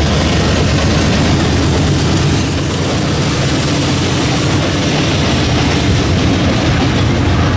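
Canadian National diesel freight locomotives passing close by, their engines running loud and steady with wheel and rail noise from the train.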